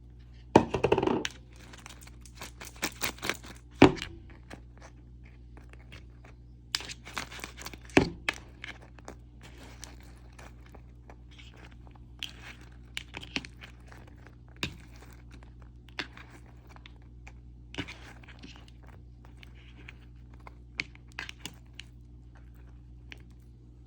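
Kitchen handling sounds as melted butter is spread over freshly baked cinnamon bites: scattered clicks, scrapes and a few sharp knocks of a utensil against a baking pan, over a steady low hum.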